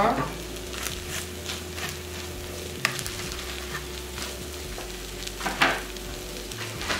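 Omelette sizzling gently in a hot nonstick skillet, with a few light scrapes and taps of a spatula against the pan, the loudest a little over halfway through.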